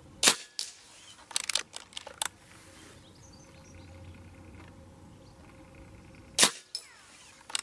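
A 5.5 mm Reximex Zone PCP air rifle with a shrouded barrel fired twice, about six seconds apart, each shot a short sharp crack. After the first shot come several lighter clicks and knocks.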